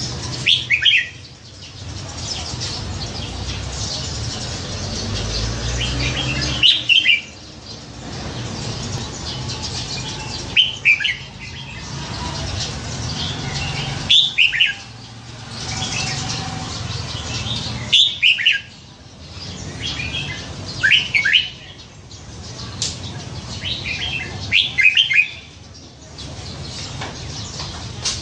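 Caged red-whiskered bulbul singing short, quick phrases of falling notes, about one every three to four seconds, over a steady background rumble.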